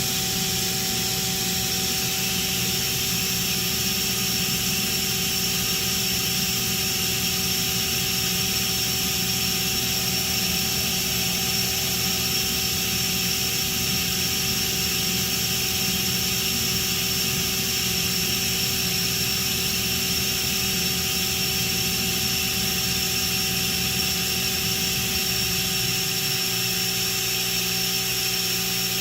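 Mori Seiki NT4300 CNC turning center running under power: a steady machine hum with several held tones over a steady hiss. The low part of the hum changes near the end.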